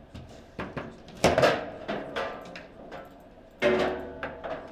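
Foosball table in play: a hard ball and rod figures striking, giving several sharp knocks that ring briefly. The loudest comes about a second in and another hard one near the end, around the shot that goes in for a goal.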